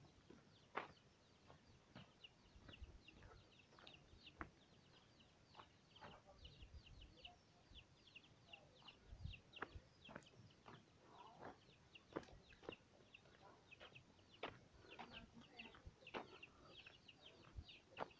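Faint, quick runs of short, high, falling chirps from birds, with scattered sharp knocks and clicks among them.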